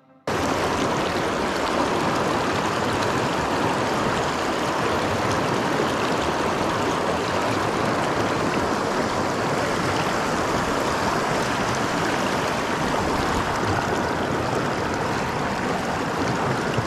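River water flowing and rushing over stones, a steady noise that starts abruptly just after the start.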